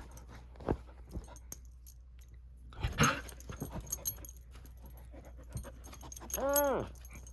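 A Goldendoodle clambering up onto a couch or lap: a few soft knocks and a rustle about three seconds in, with the metal tags on its collar jingling. Near the end comes one short call that rises and falls in pitch.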